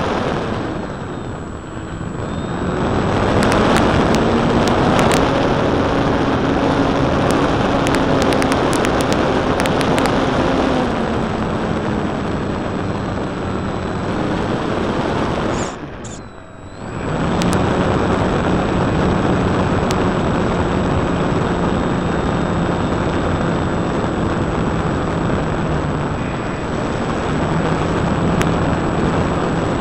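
Electric motor and propeller of a Precision Aerobatics Extra 260 radio-control aerobatic plane in flight, heard from a camera taped under the fuselage: a steady propeller drone that shifts in pitch with the throttle, under heavy wind rush on the microphone. The sound drops away briefly about halfway through, then comes back.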